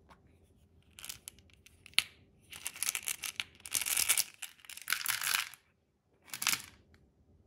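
Candy-coated chocolates rattling and clattering as they are poured from a small plastic cup into a plastic toy bathtub, in several bursts, after a few plastic clicks and a sharp click about two seconds in.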